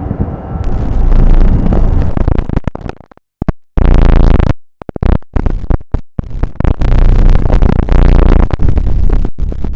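Loud, harsh distorted electronic noise with a synthesizer drone. It cuts out abruptly to silence several times in the middle in a glitchy stutter, then carries on.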